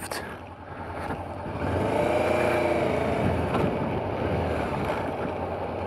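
Honda CB500X's parallel-twin engine pulling away from low speed, its pitch rising and then easing back as the bike gets going.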